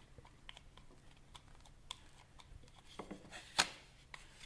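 Metal palette knife smearing and scraping soft clay on a tabletop, with scattered faint clicks and scrapes and one sharper click about three and a half seconds in. The clay is being worked to an even consistency.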